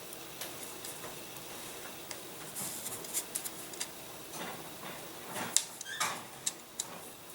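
Light handling sounds of small balsa parts and a glue bottle: scattered faint clicks and ticks, with a few louder knocks about four and a half to six seconds in.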